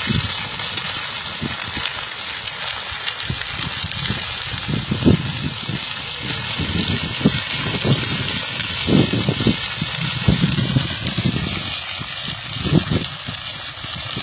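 Wind buffeting the phone's microphone in irregular low rumbling gusts, over a steady rushing noise in the open field beside the burning wheat.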